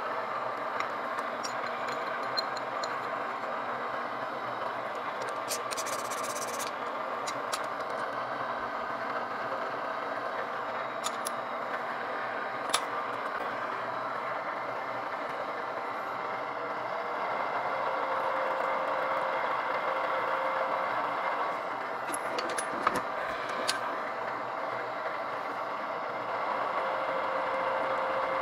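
Drill press running steadily with an 82-degree countersink cutter in the chuck, a little louder and with a steady tone in the second half, with a few light metal clicks and clinks as the parts in the vise are handled.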